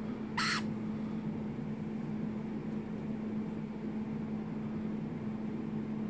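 A young varied lorikeet gives one short, harsh screech about half a second in, over a steady low hum.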